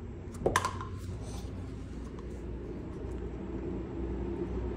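A single sharp knock with a brief ringing tone, about half a second in, over a steady low rumble.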